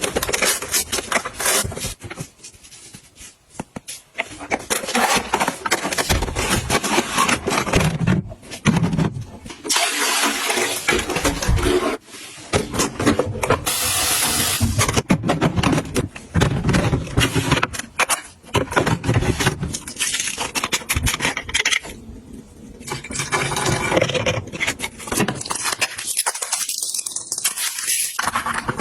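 Household items and packaging being handled and organized by hand: a busy run of clacks, knocks, scrapes and rustling, with a few brief pauses.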